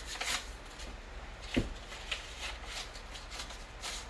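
Faint rustling and handling noise of hands and clothing, with one soft knock about one and a half seconds in.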